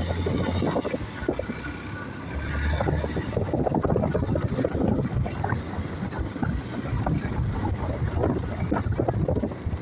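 Motorcycle riding over a rough track of loose stones: the engine runs under a constant irregular clatter and rattle as the bike jolts over the rocks.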